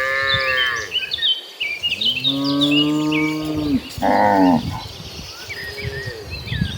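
Cattle mooing several times, with one long low moo in the middle and a shorter higher one just after it. Birds chirp in the background.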